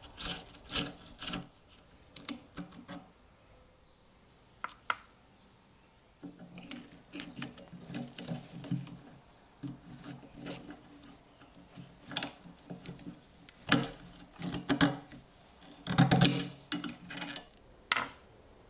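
Metal scraping and grating as a screwdriver and then needle-nose pliers work a rusted screw and locking ring loose from an old steel bayonet socket, with irregular rasping strokes and sharp metallic clicks. Just before the end there is a single click as a small part is set down on a wooden bench.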